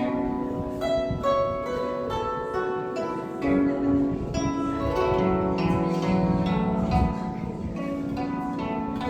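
A 26-string guzheng, the Chinese zither, played solo: a melody of plucked notes that ring on and overlap, with a few notes sliding in pitch.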